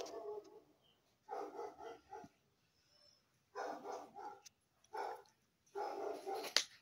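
An animal's voice in about five short calls, each under a second, with silent gaps between them; a sharp click comes near the end.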